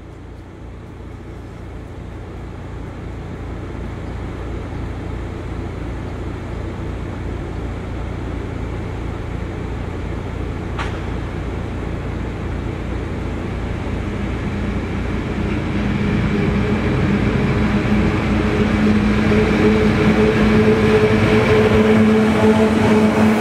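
Rhaetian Railway Ge 6/6 II electric locomotive approaching and passing close while hauling loaded log wagons, growing steadily louder. A steady hum comes up and strengthens as it nears.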